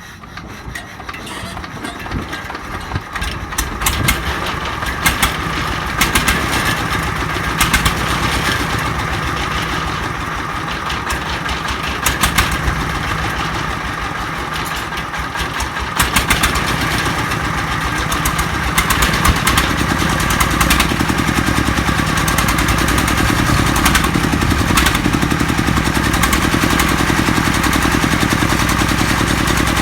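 Jiangfa D30 diesel engine starting up and running with a fast, even knocking beat, freshly rebuilt with new piston rings and reworked valves. It runs a little harder about two-thirds of the way in.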